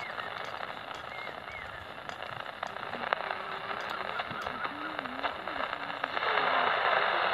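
Transistor radio's loudspeaker hissing with static as its dial is tuned between stations, with faint wavering whistles. The hiss grows louder about six seconds in.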